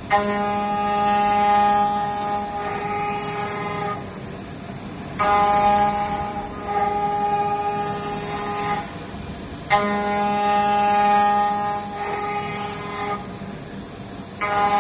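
A 5-axis CNC machining center's high-speed spindle routing solid wood. A steady whining tone with overtones comes in sharply about every five seconds as the cutter takes each pass, and eases off between passes.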